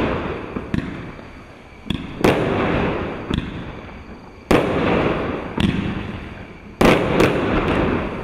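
Europyro EP-5002A 49-shot firework cake firing: aerial shells burst loudly three times about two seconds apart, each burst trailing off over a second or two, with smaller pops between them.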